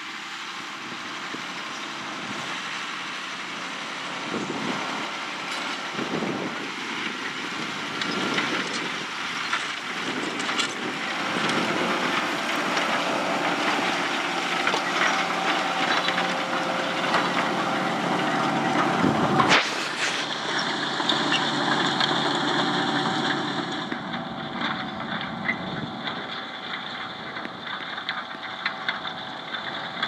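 Fendt 720 tractor's diesel engine running steadily under load, pulling a Kverneland five-furrow reversible plough through the soil, with scattered knocks throughout. About twenty seconds in the sound breaks sharply and continues duller.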